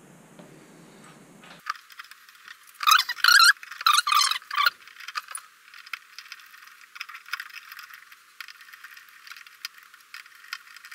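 Screwdriver and plastic shower-valve cartridge clicking and scraping together as the cartridge is seated in the valve body. There are two louder scraping rattles about three and four seconds in, then light scattered clicks, all sounding thin with no low end.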